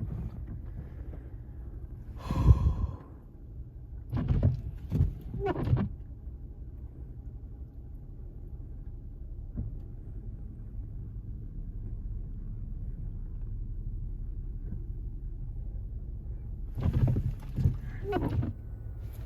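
Steady low rumble of an SUV driving, heard from inside the cabin. A brief loud sound about two and a half seconds in, and a few short mumbled voice sounds.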